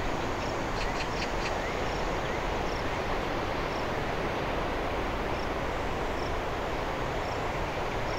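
Steady drone of an ATR 72-600 twin-turboprop airliner climbing away after takeoff, heard at a distance. A short high chirp repeats about once a second over it.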